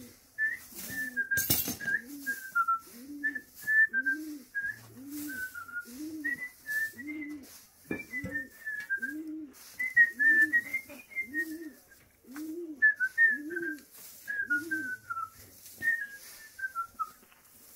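Dry straw rustling as it is scooped and scattered by hand across a floor, with one sharp crack about a second and a half in. A high whistled tune runs over it in short falling phrases. Underneath, a low cooing note repeats steadily, a little faster than once a second.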